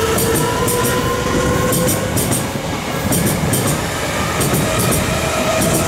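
Odakyu 5000 series electric train running past close by: a steady rumble of wheels on rail with clicks in quick pairs as the bogies cross rail joints, over a motor whine that drifts slowly in pitch.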